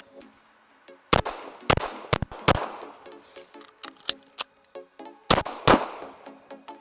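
Sphinx AT-2000 9mm compact pistol firing a quick string of shots, then a gap of nearly three seconds for a slide-lock reload, then two more quick shots.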